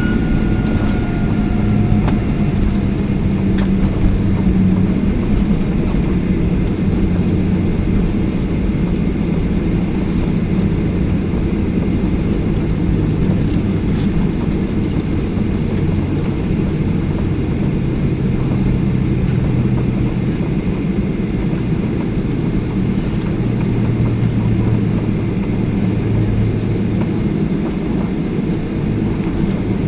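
Steady low rumble of a Boeing 737-800's cabin as the jet rolls along the ground after landing, its CFM56 engines running at low power. A faint whine fades out in the first two seconds.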